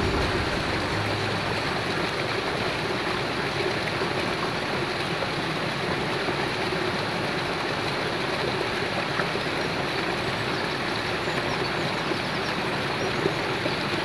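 Shallow mountain stream running over stones, a steady rush of water that cuts off suddenly at the end.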